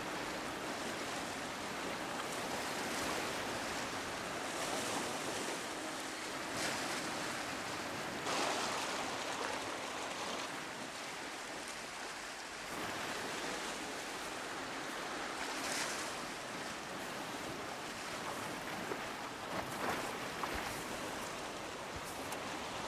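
Steady wash of lake water against a rocky shore, swelling a little now and then.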